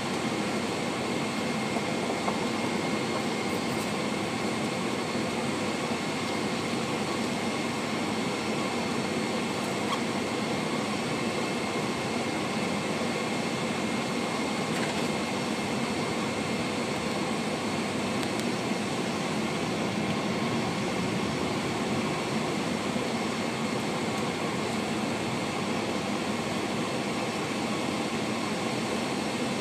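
Boeing 747-436 with Rolls-Royce RB211-524H turbofans at taxi thrust, heard inside the cabin: a steady rumble and hiss with a thin, high steady whine.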